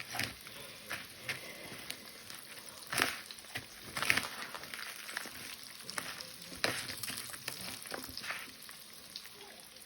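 Breaded chicken Kiev frying in hot oil in a pan: a steady sizzle, with a few sharper ticks standing out.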